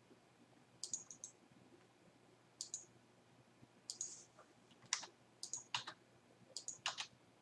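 Computer mouse clicking: faint, sharp clicks at irregular intervals, some in quick pairs or threes.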